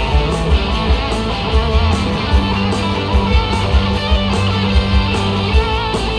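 Live rock band playing an instrumental section without vocals: an electric guitar lead with held, wavering notes over a steady drum beat and bass.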